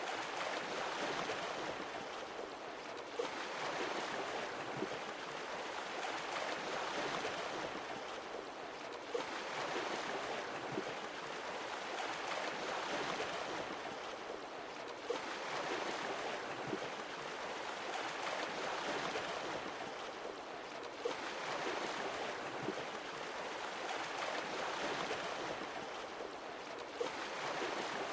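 Sea waves washing in one after another, a swell of surf about every six seconds, each opening with a brief sharp splash.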